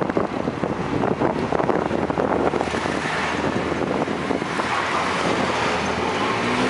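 Coco taxi motor tricycle's small engine running as it drives along a street, with wind buffeting the microphone.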